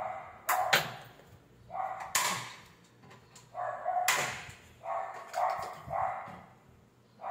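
A dog barking over and over, about ten short barks spaced half a second to a second apart.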